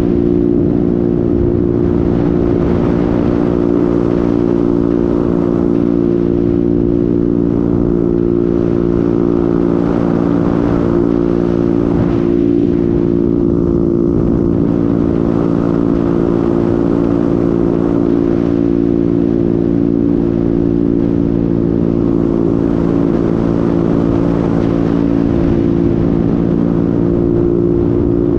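Honda MetRuck scooter's engine running at a steady cruising speed, its hum holding one even pitch, under wind and road noise on a helmet-mounted camera.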